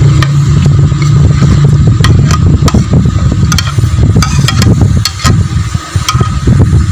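Metal spoon scraping aloe vera gel off a ceramic plate and tapping on the plate and the clay pot's rim: a scatter of sharp clicks and clinks, over a loud, steady low rumble.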